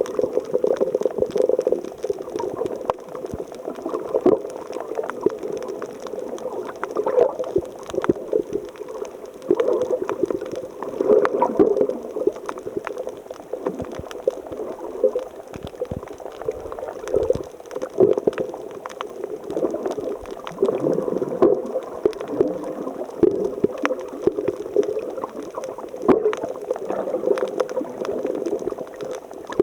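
Water bubbling and gurgling in irregular surges, muffled, with most of the sound low and little hiss above it.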